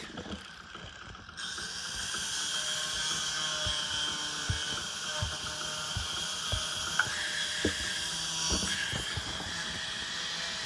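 Handling noise of a phone held with a finger over it: scattered knocks and rubbing, over a steady high-pitched whine that starts about a second and a half in.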